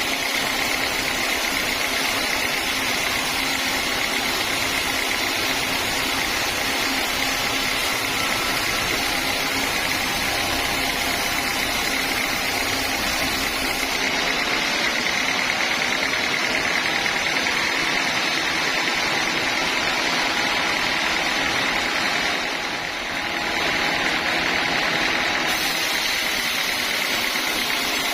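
Sawmill machinery running steadily as timber is sawn, a continuous noisy drone with a steady high whine. The noise dips briefly about two-thirds of the way through, then resumes.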